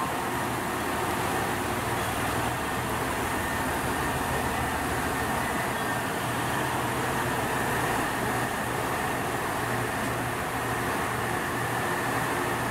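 KiHa 187 series diesel railcar idling at the platform: a steady engine drone with a low hum that does not change.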